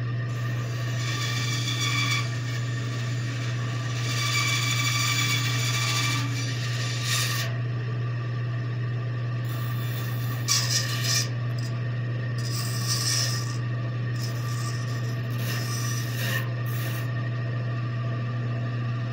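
Bandsaw blade cutting through a small block of wood in several short passes, each a second or two of rasping, over a steady low hum. The loudest pass comes about halfway through.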